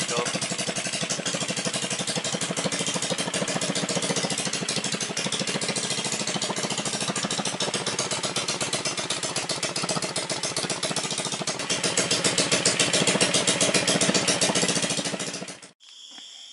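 Go-kart's 110cc single-cylinder engine running steadily on its first start-up, rising a little in loudness about twelve seconds in, then cutting off suddenly near the end.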